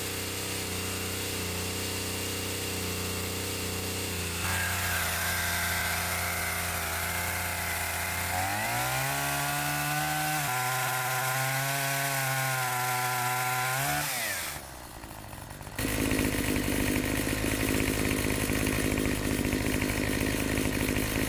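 Chainsaw running steadily, then revved up about eight seconds in and held at high speed with a wavering pitch as it cuts branches. It drops off around fourteen seconds, and after a short lull a rougher, noisier run of sawing fills the last few seconds.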